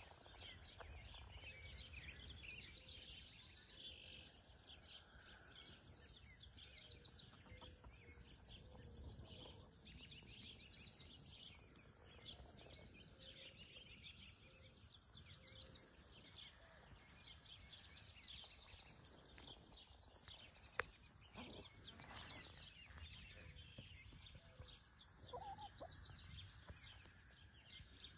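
Faint outdoor bird sounds: frequent quick, high chirps throughout, with soft low clucks from chickens foraging close by. A single sharp click about two-thirds of the way through is the loudest thing.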